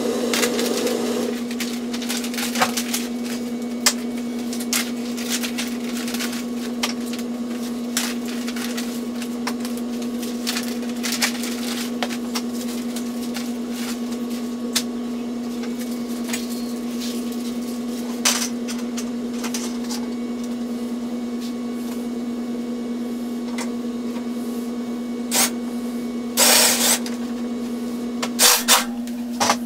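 A steady machine hum with one low tone runs throughout, under scattered light clicks and knocks of parts being handled, with a short rustling burst near the end.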